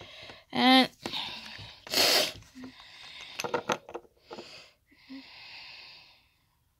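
A person sneezing once, about two seconds in, after a short voiced catch of breath, followed by breathy sniffing or exhaling. The sneezing is likely from allergies acting up.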